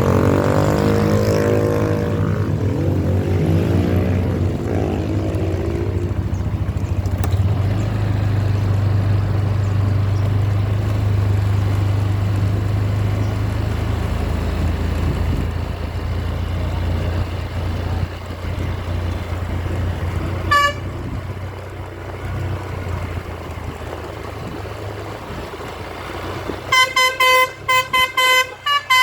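Bus engine running with a steady low drone. Briefly about two-thirds of the way in, and then from near the end, a multi-tone 'telolet' basuri horn sounds in rapid repeated toots that step in pitch.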